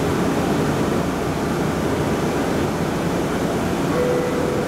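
Steady rumbling noise inside an automated people-mover train car, with a brief low tone about four seconds in.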